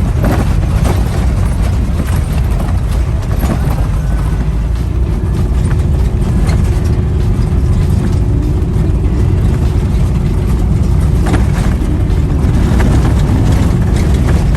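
Road and engine noise of a moving car heard from inside: a steady low rumble, with a few short knocks and rattles.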